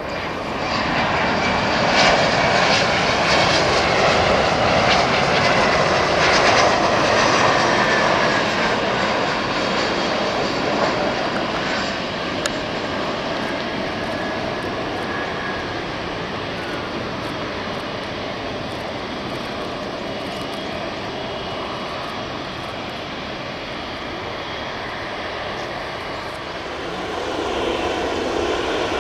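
Jet airliner engines: a loud passing jet with a high whine sliding down in pitch over the first several seconds. It then settles into a steadier rumble and swells again near the end.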